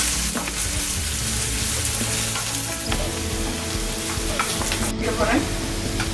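Onion with crushed ginger and garlic sizzling steadily in hot sunflower oil in a frying pan, stirred with a spoon that scrapes and knocks on the pan now and then.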